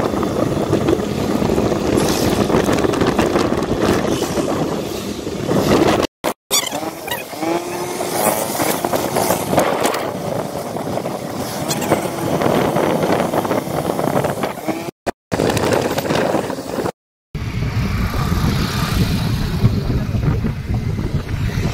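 Riding a two-wheeler through traffic: steady wind rush and road and engine noise. The sound drops out abruptly for a moment a few times, and a short wavering tone rises over it about seven seconds in.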